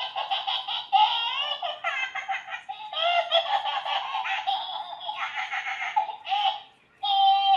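IMC Toys Fufris monkey animatronic playing its recorded laughter through a small toy speaker. The sound is thin, with no low end. It breaks off about six and a half seconds in, then laughs once more briefly.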